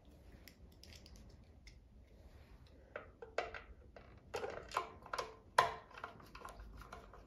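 Screwdriver turning a screw into a sewing machine's plastic base cover: a run of short clicks and scrapes, louder from about three seconds in.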